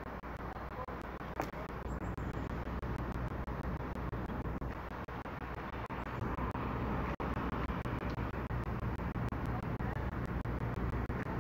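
Steady low rumble of road traffic, with one short sharp click about a second and a half in.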